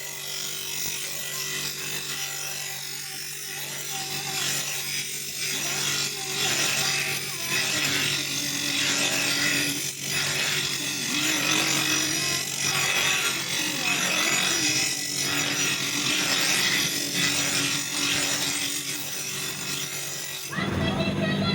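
Rasping strokes of a hand tool worked back and forth, about one stroke a second.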